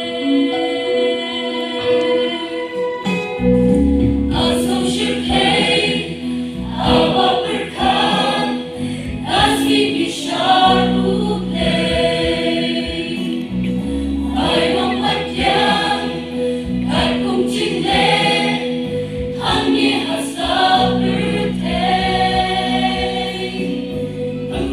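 Church choir singing a hymn in parts, with steady low notes coming in underneath about three seconds in.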